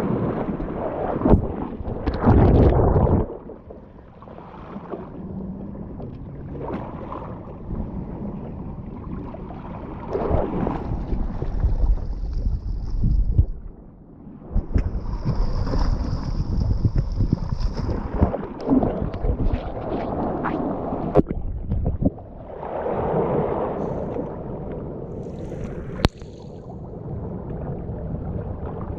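Seawater surging and washing over shoreline rocks, with wind buffeting the microphone. The water swells and falls unevenly, loudest about two seconds in, with a few sharp knocks.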